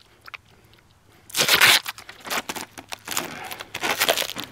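Duct tape peeled and ripped off a taped stack of paper plates, the plates rustling as they are pulled apart. Quiet for about the first second, then one loud rip, followed by several shorter rustles.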